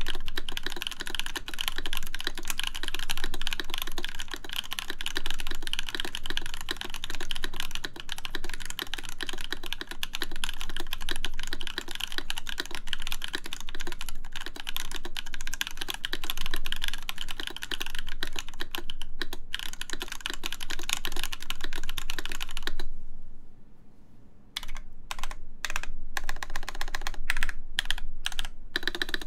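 Fast, continuous typing on a 43Studio 4398 full-size mechanical keyboard with JWK Camping Life switches lubed with Krytox 205g0 on an aluminium plate. Near the end the typing stops for about a second and a half, then resumes in short runs of keystrokes.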